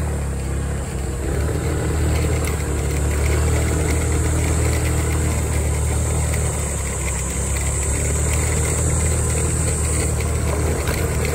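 SYM Woo 115 scooter engine running at steady throttle while riding up a narrow lane, with a thin steady high whine above it.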